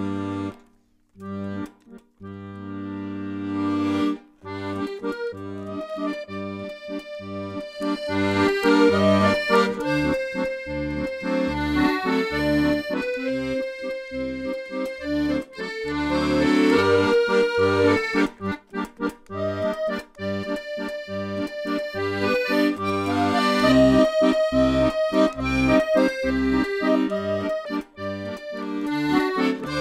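Solo piano accordion playing a waltz: a melody on the right-hand keyboard over repeating left-hand bass notes and chords. A held chord and a short break come in the first seconds before the tune settles in.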